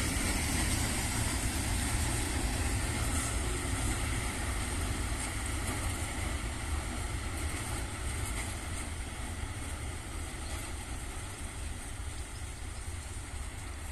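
Slow freight train of hopper wagons rolling past, with a diesel locomotive's engine giving a steady low rumble; the sound slowly fades.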